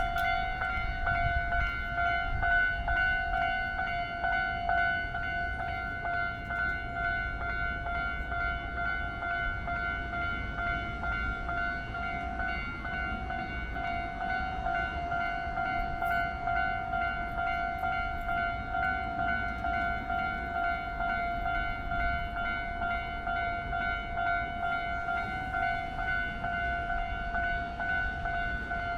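Japanese railway level crossing warning bell ringing on and on: a repeating electronic bell tone with a low rumble beneath it. This is the signal that the crossing is closing for an approaching train.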